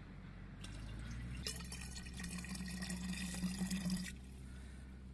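Water poured from a small copper cup into the narrow neck of an earthenware jug. It splashes and gurgles for about two and a half seconds, then stops abruptly.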